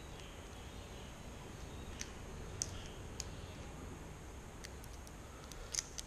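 Scattered small clicks and crackles of a cooked prawn's shell being peeled apart by hand, about half a dozen spread over a few seconds, above a steady low room hum.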